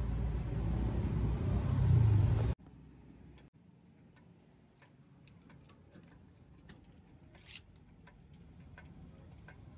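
A motor vehicle engine rumbles, growing louder, then cuts off abruptly about two and a half seconds in. Faint scattered metallic clicks and taps of hand tools on the tractor's transmission housing follow.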